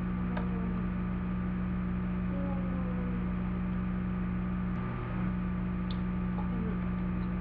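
A steady low electrical hum, with a couple of faint light clicks from small plastic toy figures being handled.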